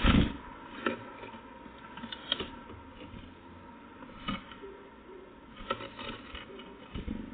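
Irregular knocks and taps from birds landing on and pecking at a nut feeder, the loudest right at the start, with smaller clusters of taps every second or two.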